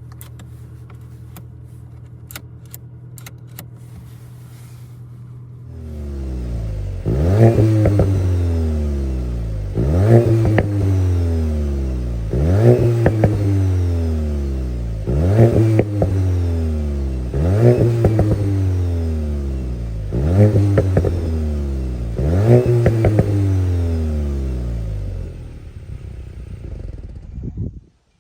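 Volkswagen Golf 8 GTI's 2.0-litre turbocharged four-cylinder petrol engine idling, then revved about seven times roughly every two and a half seconds, each rev rising sharply and the revs falling back slowly afterwards. The sound cuts off abruptly near the end.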